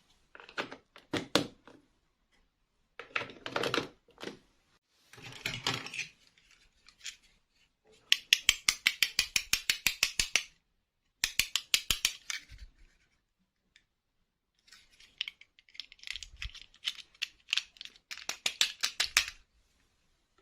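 Small plastic toy pieces and packaging being handled, in separate bursts of rustling and rapid clicking, some runs of about ten clicks a second lasting two to three seconds.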